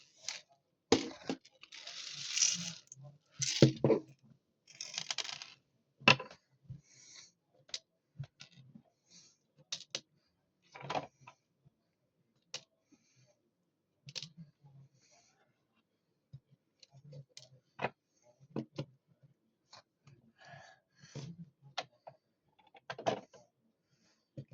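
Small plastic toy washing machine being handled: irregular sharp clicks and taps, with a few short rustling bursts in the first few seconds.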